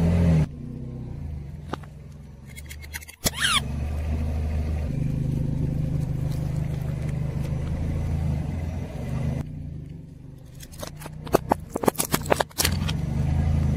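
A car engine idling low while its tyre rolls over and crushes small plastic objects. There is one sharp crack with a brief squeak about three seconds in, then a quick burst of cracks and snaps near the end as a pair of plastic sunglasses breaks under the tyre.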